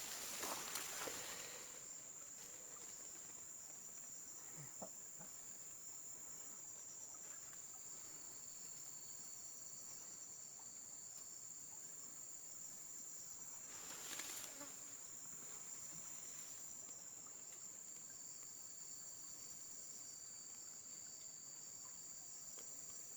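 Insects calling in a steady, high, thin drone, with a second, slightly lower insect tone coming and going. A brief burst of noise about fourteen seconds in.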